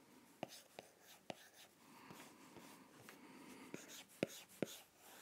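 A stylus tip tapping and stroking on an iPad Pro's glass screen while sketching: faint scratchy strokes with sharp ticks as the tip touches down, a few in the first second and a cluster about four seconds in.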